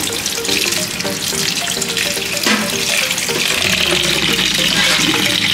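Tap water running steadily and splashing into a plastic bowl in a steel sink while hands rub and rinse pieces of fish in the water.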